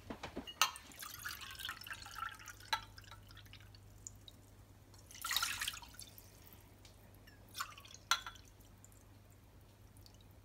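Water poured from a glass jug into a small steel cup and tipped from the cup into an empty nonstick pan, in short splashes, with a few light knocks of the cup. The loudest splash is the cupful hitting the pan about five seconds in.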